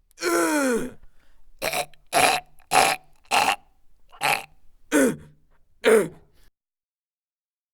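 A person's voice making a series of about eight short grunts and groans, several sliding down in pitch. The sound cuts out to dead silence about six and a half seconds in.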